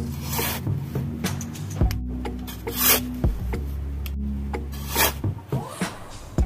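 Small metal trowel scraping and digging through sand in short strokes, the loudest three about two seconds apart.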